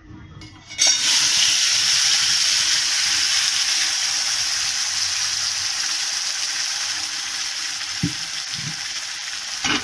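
Ground pumpkin-leaf paste hitting hot oil in a wok (kadai), breaking into a loud sizzle about a second in that slowly dies down while it is stirred with a spatula.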